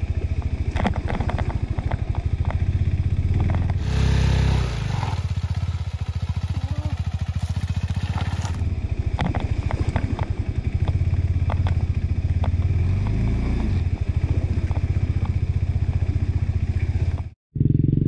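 KTM 390 Adventure's single-cylinder engine running at low revs on a muddy climb, with scattered clattering from the bike over rough ground. It revs up briefly about four seconds in and again around thirteen seconds. The sound cuts out for a moment near the end.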